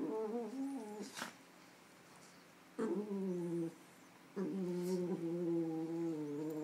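A dog making long, drawn-out play-growls, three of them: one about a second long at the start, a shorter one about three seconds in, and a longer one of nearly three seconds near the end. A brief click comes just after the first.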